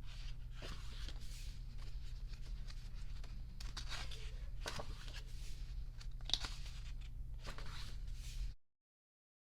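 Paper pages of a photo book being turned and handled: several short papery rustles over a steady low hum, with the sound cutting off abruptly near the end.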